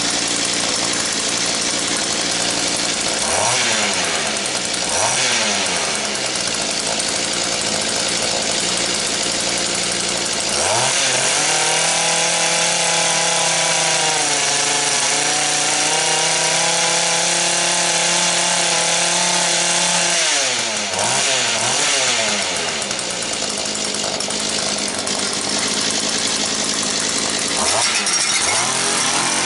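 Mantis rototiller's two-stroke engine running and revving up and down several times, held at high speed for about ten seconds in the middle before dropping back.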